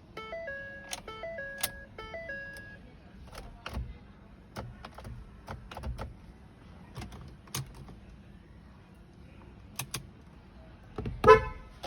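Car dashboard warning chime in a 2013 Ford EcoSport diesel that will not crank: a short stepped electronic tune plays three times, then scattered sharp clicks follow, and a brief loud tone sounds near the end.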